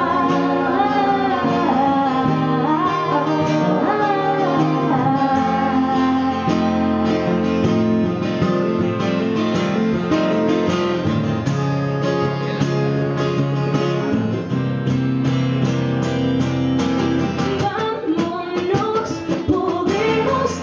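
Live performance of a pop song: acoustic guitar chords with a woman's singing voice, the voice strongest at the start and again near the end.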